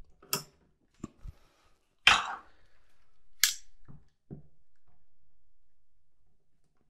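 Locking pliers (vise grips) clacking and snapping as they are clamped onto and taken off a door hinge pin that paint has stuck in the hinge. There are several sharp metallic clicks, the loudest about two seconds in, with smaller ticks up to about four and a half seconds in.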